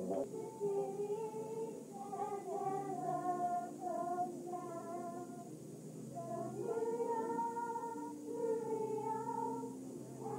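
A group of girls singing together, with several young female voices holding long notes.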